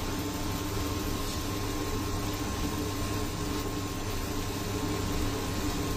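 Induction cooktop running under a lidded pan of curry: a steady hum and fan noise, with a few faint steady tones over it.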